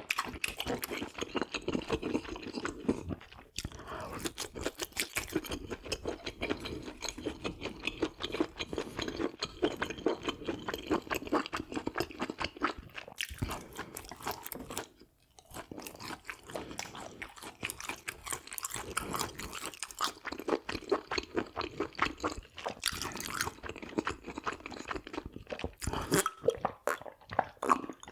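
A person chewing food close to the microphone: a steady run of rapid mouth clicks and smacks, with a short pause about halfway through.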